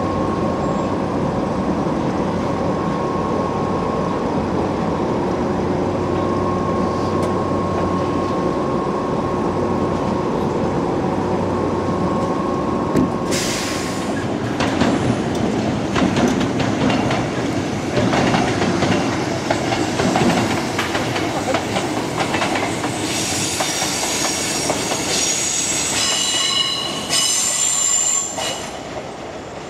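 Steady electrical hum of a stopped electric train. About halfway through it gives way to a passing electric train: wheels clicking over rail joints, then squealing high on a curve near the end.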